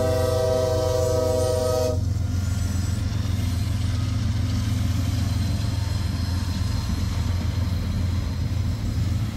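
A CSX freight train's diesel locomotive horn sounding a held chord that cuts off about two seconds in, followed by the steady low rumble of the locomotives and freight cars passing close by.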